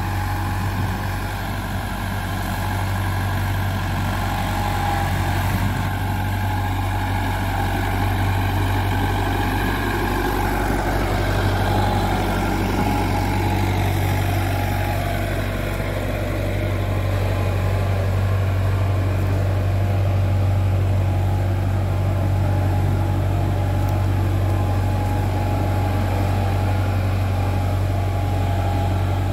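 Diesel farm tractor engine running with a steady low note as it slowly pulls a trailer fully loaded with coconuts over soft, wet soil.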